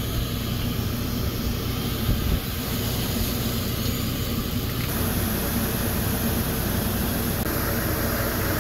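Newly installed RV rooftop air conditioner running: a steady rush of air from its fan with a low hum underneath, blowing hard. The airy hiss gets brighter about halfway through.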